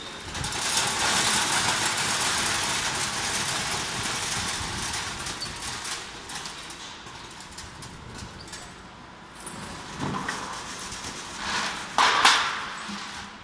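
Optical colour sorter running on a mix of apricot kernels and shells: a loud hiss and rattle as the pieces stream down its chutes and the ejectors fire, fading gradually as the feed thins. Near the end come a couple of brief loud rattles of kernels being handled in a metal tray and plastic crate.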